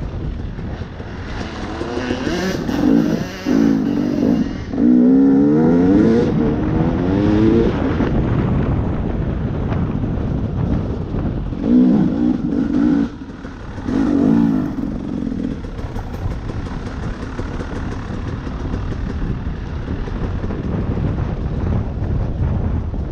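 Off-road vehicle's engine running while riding, revving up and down in two spells, about two to eight seconds in and again around twelve to fifteen seconds in, over a steady rush of wind and tyre noise.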